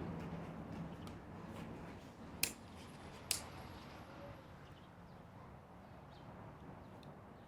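Two sharp mechanical clicks a little under a second apart from a small pistol crossbow being handled between shots, over the fading tail of the previous shot.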